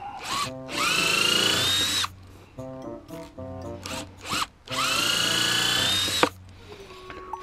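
Electric drill running in two bursts of about a second and a half each; each time the motor spins up with a rising whine, holds steady, then stops abruptly. Background music plays underneath.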